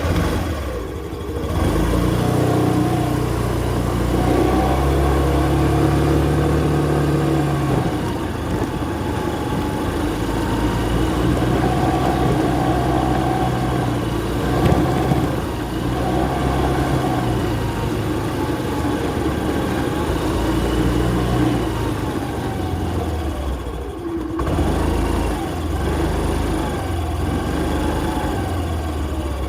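Yamaha scooter engine running, its pitch shifting up and down several times as the throttle is opened and eased off. It briefly dips and quietens about three-quarters of the way through.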